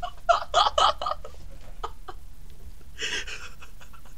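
A man chuckling softly in short breathy bursts through the first second or so, with another breathy laugh about three seconds in.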